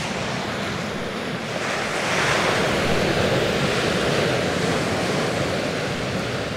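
Sea waves washing onto the shore, a steady rushing that swells about two seconds in and eases a little toward the end, with some wind on the microphone.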